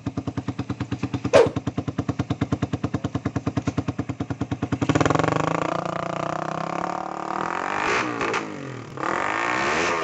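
Suzuki Raider 150's single-cylinder four-stroke engine, exhaling through a Charama V9 open pipe with its silencer insert fitted: idling with distinct, even exhaust pulses, a short sharp click about one and a half seconds in, then revved from about five seconds in, the pitch rising and falling.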